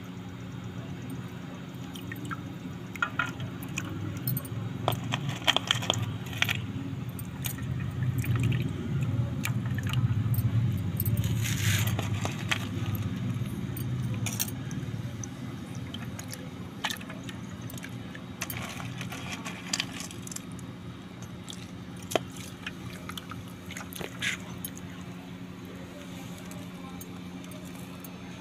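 Dry multani mitti (Fuller's earth) flakes being dropped into and squeezed by hand in a steel bowl of water: short splashes and crackles of the clay pieces, with bangles on the wrist clinking. A steady low hum runs underneath.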